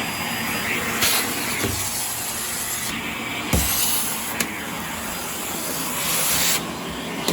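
Hoover Air Steerable upright vacuum cleaner running and sucking air, its hiss changing several times as the airflow shifts, with a few light knocks.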